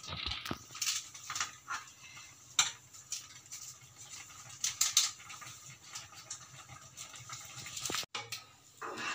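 Maggi noodles bubbling in water in a pan on a high gas flame, with irregular light pops and ticks over a steady low hum, and the crinkle and taps of a foil Maggi masala sachet being shaken out over the pan.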